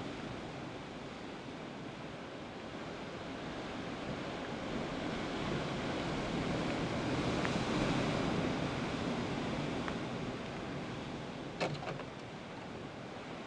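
Heavy sea surf breaking and washing over a rocky shore, a steady roar of white water that swells to its loudest near the middle. A short, sharp knock cuts through it once near the end.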